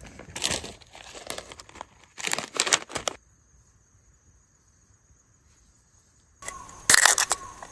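A drink can being handled and its ring-pull cracked open, with a short fizzing hiss about two seconds in. After a silent stretch come more rustling handling sounds and sharp clicks near the end.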